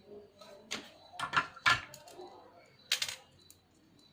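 A handful of short, sharp clicks and knocks, hard objects being handled, with the loudest about one and a half seconds and three seconds in.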